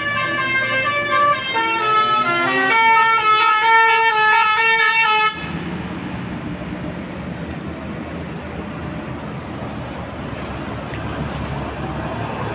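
Basuri telolet horn on a bus, a multi-tone musical horn, playing a run of changing notes and cutting off abruptly about five seconds in. After it comes a steady rumble of engine and street noise.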